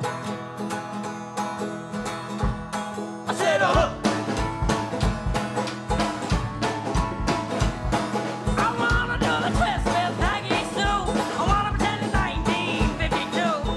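Background music: an upbeat country-style song with plucked strings. It is instrumental at first; a steady beat comes in about two and a half seconds in, and a singing voice about a second later.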